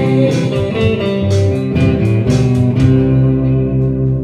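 Band music led by electric guitar: rhythmic playing for about three seconds, then a final chord held and left to ring, its low notes pulsing steadily.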